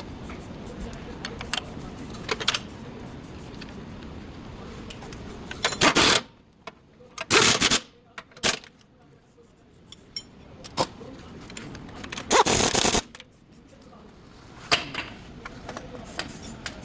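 Metal clinks and rattles from tools and parts being handled. A few short, loud scraping bursts come about six, seven and a half, and twelve and a half seconds in.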